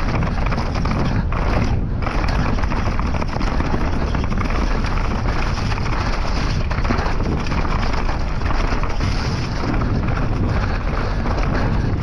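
Mountain bike ridden fast down a downhill trail without its chain: a steady rush of tyre and trail noise with the bike rattling over rough ground, and wind buffeting the microphone.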